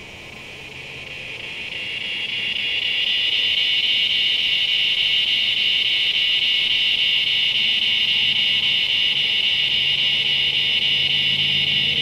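Cicada call: a high, continuous buzz that grows louder over the first three seconds, then holds steady and loud. A faint low rumble of distant traffic runs underneath.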